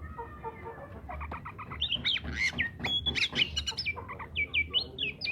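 Oriental magpie-robin singing a fast, varied run of clear whistled notes and pitch glides mixed with harsh, scratchy notes. The song starts about a second in and grows louder from about two seconds on.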